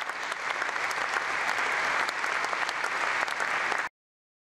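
A large hall audience applauding, a dense patter of many clapping hands that swells slightly and then holds steady. It cuts off suddenly near the end.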